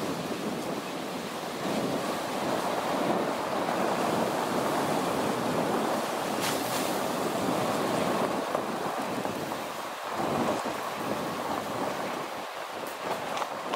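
Vehicle driving along a rough two-track road: a steady rushing noise of tyres and the moving vehicle, with a brief knock about six and a half seconds in and a few light knocks near the end.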